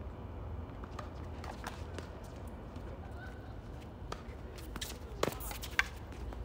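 Tennis ball being hit by racquets and bouncing on a hard court during a doubles rally: a series of sharp pops, the two loudest close together a little past five seconds in, over a low steady rumble.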